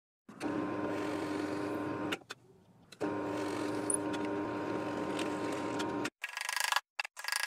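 Electric drill running steadily as its twist bit bores into a thin wooden panel, with a short break about two seconds in. The drill stops about six seconds in, followed by a few short scratchy sounds.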